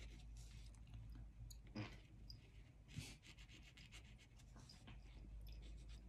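Faint scratching and tapping of a black felt-tip marker on paper as short lines and dots are drawn, with a couple of soft knocks about two and three seconds in.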